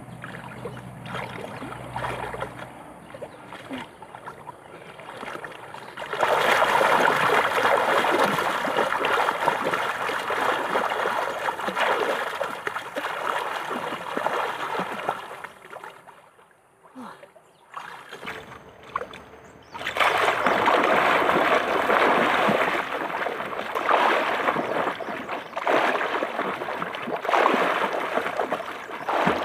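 Water splashing and sloshing in two long spells, with a short quiet break about two thirds of the way through.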